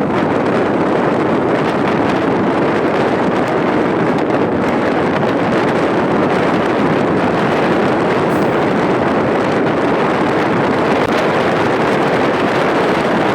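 MEMU electric train running at speed, heard from its last coach: a loud, steady rush of running noise and air, with wind buffeting the microphone.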